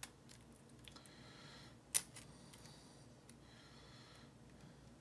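Small metal clicks and scrapes of a clip-removal tool working at a padlock's rear retaining clip, with one sharp click about two seconds in.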